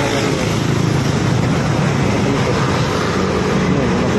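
Steady road traffic: motorcycle and car engines running close by in slow traffic.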